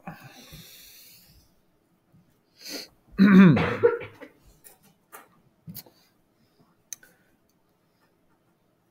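A man clearing his throat once about three seconds in, followed by a few faint clicks.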